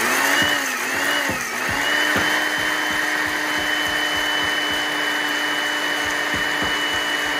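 Electric mixer grinder (mixie) running at speed, grinding whole spices (mustard seed, ajwain, fennel, cumin, cardamom, cloves) into powder. Its motor whine wavers for about the first two seconds, then holds steady.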